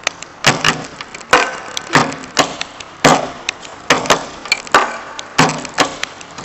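Hands slapping and drumming a beat on a wooden tabletop: sharp hits about every half second, with lighter taps in between.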